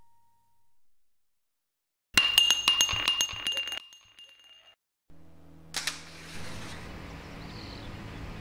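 A sudden burst of sharp clinking impacts with a high ringing tone, lasting about a second and a half and dying away. A few seconds later a single click, then steady room hiss.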